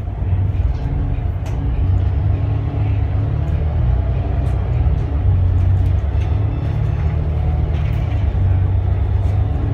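Volvo B8RLE bus's D8K six-cylinder diesel engine and ZF EcoLife automatic gearbox heard from inside the cabin as the bus pulls away from a stop and drives on, a deep steady rumble.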